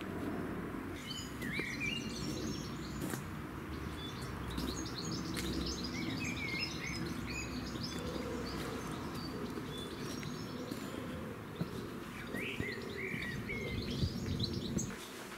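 Songbirds chirping and trilling in short bursts, about a second in, again in the middle and once more near the end, over a steady low outdoor background noise.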